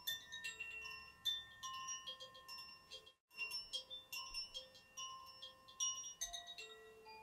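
Chimes ringing in an irregular, unrhythmic cascade of overlapping high, clear tones, each strike left to ring on. The sound breaks off completely for a moment about three seconds in, then resumes.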